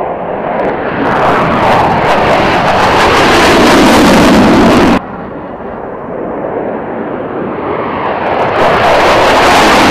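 F-15E Strike Eagle's twin jet engines at takeoff power with afterburner, the noise growing steadily louder and then cut off abruptly about halfway through. An EA-18G Growler's twin jet engines at takeoff power follow, growing louder again towards the end.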